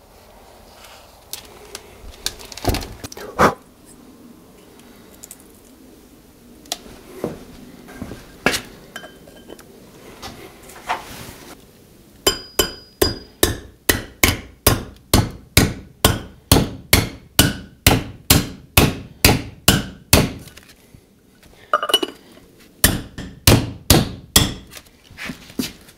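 Hammer tapping a steel installer cup to drive an SKF Speedi-Sleeve onto a crankshaft damper hub, metal on metal. A few scattered knocks come first, then quick, even strikes about three a second for some eight seconds, a short pause, and another run of strikes near the end.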